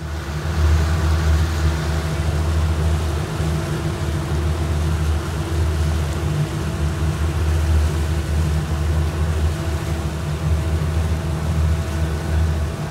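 Motorboat engine running steadily at speed, a loud low drone, with the rushing hiss of wind and water as the boat moves through the sea.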